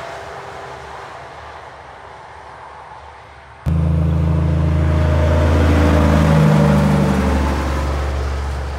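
A heavy truck's diesel engine and tyre noise fading into the distance, then, after an abrupt cut about a third of the way in, a cab-over prime mover pulling a loaded low-loader trailer passes close by: a loud, low, steady diesel engine drone over tyre noise on the road, its engine note shifting slightly as it goes past, easing off near the end.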